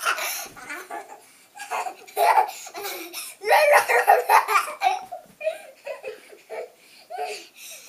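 Young children laughing and giggling in several high-pitched bouts, loudest about halfway through, with short quiet gaps between.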